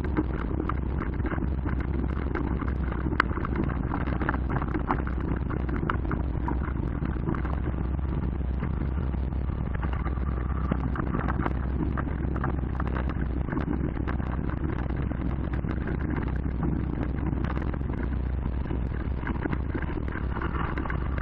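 Mountain bike riding over rough dirt: a steady low rumble of tyres on the ground with constant small clicks and rattles from the bike, and one sharper click about three seconds in.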